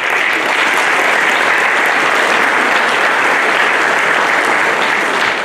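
An audience applauding, steady, starting to die down at the very end.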